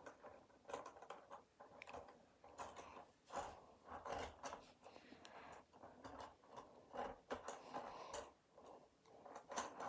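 Faint, irregular plastic clicks and light rubbing as a toy train car is fitted onto plastic track and pushed along it by hand.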